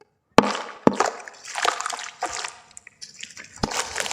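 Sand-cement shapes crumbling in water: a sharp splash about half a second in and another just after, then uneven splashing and crackling as the pieces break up in the water.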